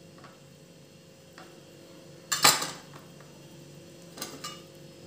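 Knife cutting a steamed egg slab into fingers on a plate, the blade knocking and scraping against the plate: a couple of faint taps, one loud clatter about two and a half seconds in, then two lighter clinks near the end.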